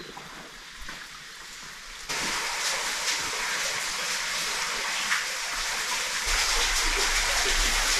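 Steady hiss of falling water, like heavy rain, starting suddenly about two seconds in; a low rumble joins it about six seconds in.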